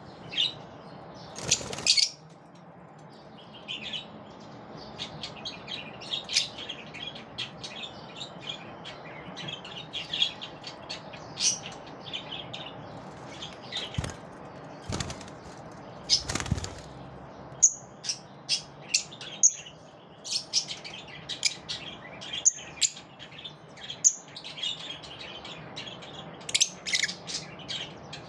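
Pet lovebirds chirping: a steady run of short, high chirps throughout. A couple of brief, louder rustling bursts come about 2 seconds in and about halfway through.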